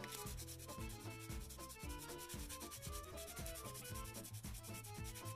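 Nail file rubbed quickly back and forth along a cast resin part, sanding its mould seam lines down in a fast, even rasping.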